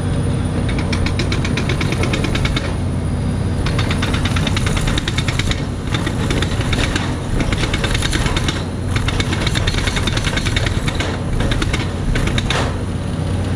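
Truck-mounted rock drill hammering into bedrock: runs of rapid percussive blows that stop and restart about five times, with the hammer blowing dust out of the hole. Under it the steady engine drone of the yellow Atlas Copco power unit.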